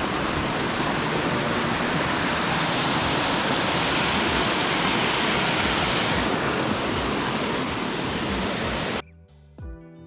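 Steady rushing of a waterfall. About nine seconds in it cuts off abruptly and quieter music with plucked notes takes over.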